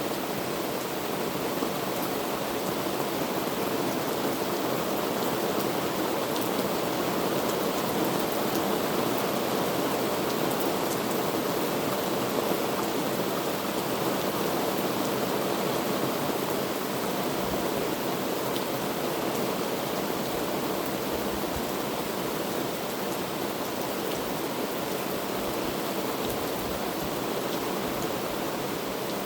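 Heavy rain falling steadily, a dense even hiss with faint scattered drop ticks.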